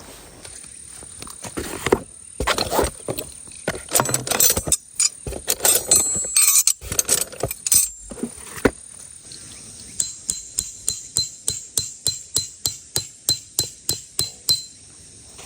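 Metal camping gear clattering and clinking, then a run of quick, evenly spaced ringing metal-on-metal hammer blows, about three to four a second, that stop suddenly near the end: a hammer driving a metal tent stake.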